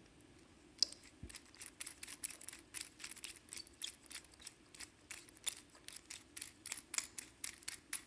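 Precision screwdriver turning a tiny screw to fasten the small plastic cover on a drone gimbal motor: a run of short, sharp little clicks, about four a second, starting about a second in.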